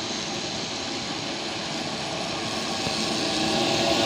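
Articulated trolleybus approaching and drawing alongside, its electric drive and tyres growing steadily louder.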